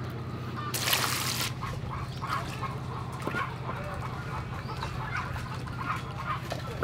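Hands washing vegetables in an aluminium bowl of water, sloshing and splashing, with a louder splash about a second in.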